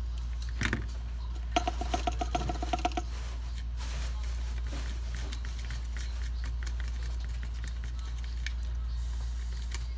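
A bare power-supply circuit board is handled and turned over on a workbench, giving a quick run of clicks and knocks about two seconds in, with a short pitched buzz under them. A steady low hum runs throughout.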